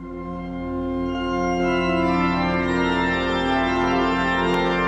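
Pipe organ playing full sustained chords that start abruptly, with a line of notes climbing over the held chords in the first few seconds.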